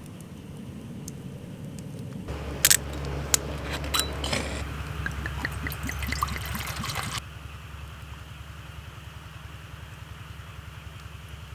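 A couple of sharp clicks, then liquid pouring for about three seconds that stops suddenly.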